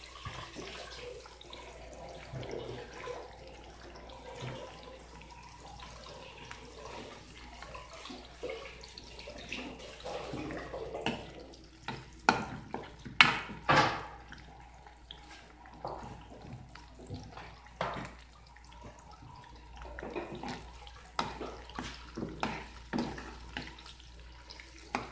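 Sliced onions bubbling in oily liquid in a pan, with a steel ladle stirring and clinking against the pan, several sharp knocks about halfway through and more near the end.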